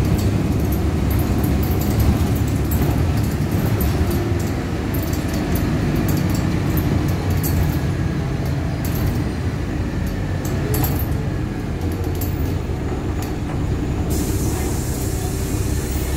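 Inside a moving LiAZ-5293.60 city bus: its diesel engine and road noise make a steady low rumble, with scattered clicks and rattles. A steady hiss starts suddenly near the end.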